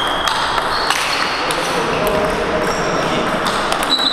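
Table tennis balls being hit: irregular sharp clicks of bats striking the ball and the ball bouncing on tables, from several games going at once.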